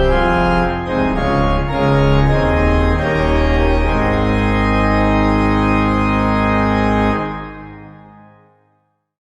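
Organ music closing on a long held chord, which is released about seven seconds in and fades away over a second and a half.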